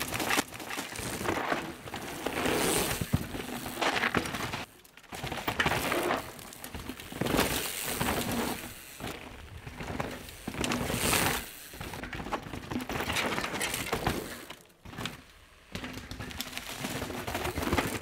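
Downhill mountain bike ridden hard on a dry dirt trail: tyres skidding and scrabbling through loose dirt in repeated surges, with sharp clicks and clatter from the bike, and two brief lulls as it passes.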